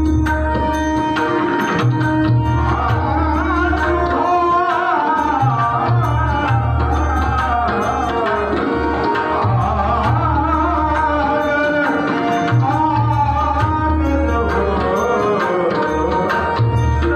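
Live bhajan music: a male voice singing over a steady harmonium drone, with deep pakhavaj bass strokes and tabla played in repeated rhythmic phrases. The singing comes in about three seconds in.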